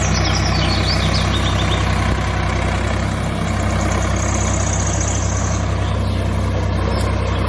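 Tractor engine idling steadily with a low, even hum.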